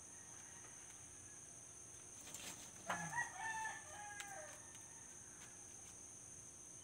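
A rooster crowing once, about three seconds in, for about a second and a half, over a steady high drone of night insects.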